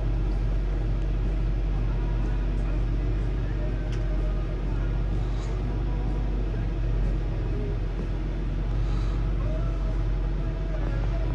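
Snobear's engine idling, a steady low hum heard from inside its closed cabin.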